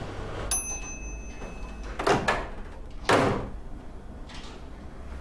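Microwave oven beeping once, a steady high beep of about a second and a half as its heating cycle ends, followed by two short swishing sounds about a second apart.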